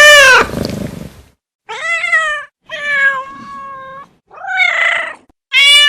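Domestic cat meowing about five times in a row, each meow a short call with short gaps between them.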